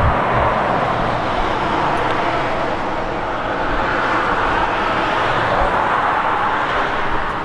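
Steady road traffic noise, tyre and engine hiss from passing cars, swelling slightly about four to five seconds in.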